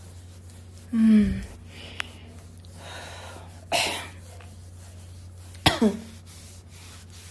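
A woman's voice making short releasing sounds: a sighing groan that falls in pitch about a second in, a sharp forceful breath out near the middle, and another falling groan later, part of a cathartic breathing practice. A steady low hum runs underneath.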